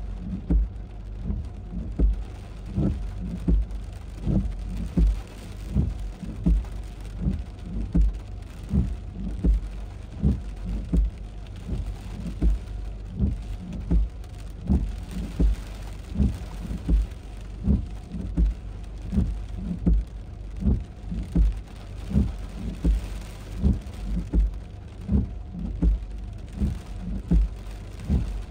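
Heavy rain with a regular deep thump about once a second, each thump followed by a short sweeping swish.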